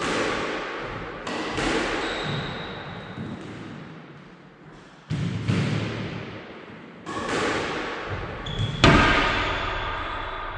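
Squash ball being struck with a racket during a backhand drill, with five sharp hits, at the start and about one, five, seven and nine seconds in, each echoing off the court walls. Between the hits there are brief high squeaks, likely shoe soles on the court floor.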